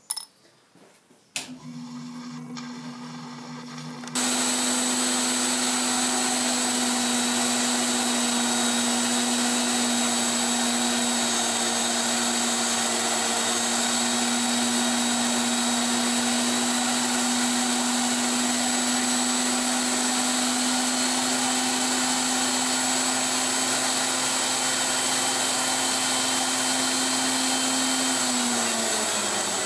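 A click and a quieter machine hum start about a second in, then about four seconds in a lathe-mounted tool post grinder starts up loud and runs steadily, its wheel grinding the steel R8 taper in a rough pass under coolant with a steady whine. Near the end the whine begins to drop in pitch as a motor winds down.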